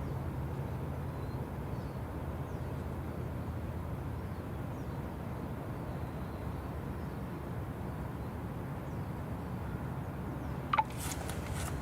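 Steady low rumble of outdoor background noise with faint, scattered high bird chirps, and a brief sharp click-like sound with a quick falling tone near the end.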